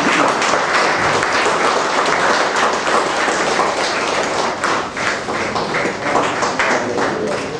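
Audience applauding, the dense clapping thinning into more separate claps and easing off toward the end.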